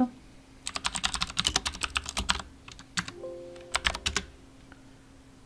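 Computer keyboard typing: a quick run of keystrokes lasting about a second and a half, then a short pause and a few more keystrokes.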